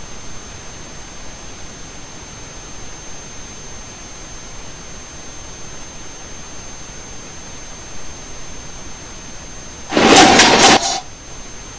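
Steady recording hiss with a faint high-pitched whine. About ten seconds in, a loud burst of audio from a video advertisement starting to play on the computer is heard for about a second, then cuts off suddenly.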